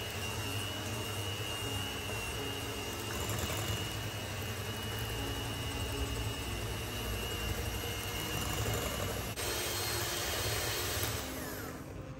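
Zephir electric hand mixer running steadily, its beaters whipping cream into thickened pastry cream in a bowl. The motor noise grows brighter about nine seconds in, then winds down near the end.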